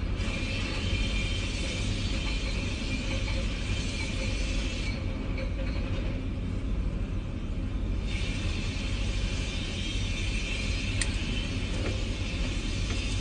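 Steady low rumble of crane machinery heard from up in the crane, with a faint hiss that drops away for about three seconds in the middle and a couple of faint clicks near the end.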